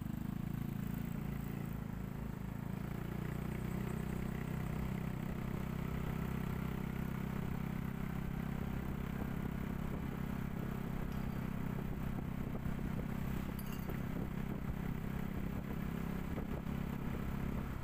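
A vehicle's engine running steadily as it rides along a street, with road and wind noise.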